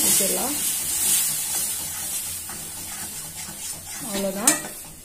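Metal spatula stirring and scraping mutton masala in a steel kadai, with frying sizzle.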